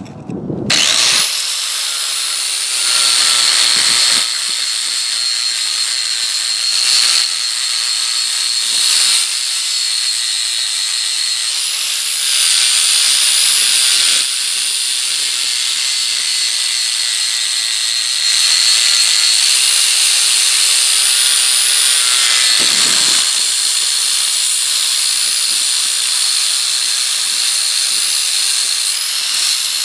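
Power wire wheel spinning against the steel of a railroad-track anvil, scouring it clean before welding: a steady, high-pitched hiss with a faint motor whine that starts about a second in and gets louder in several stretches.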